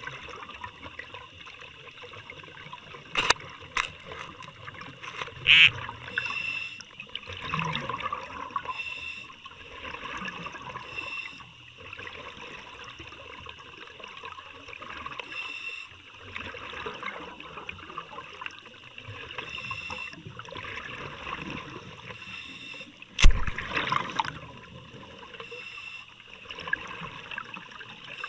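Underwater bubbling and gurgling heard through a submerged camera, swelling every few seconds, with a few sharp knocks, the loudest late on.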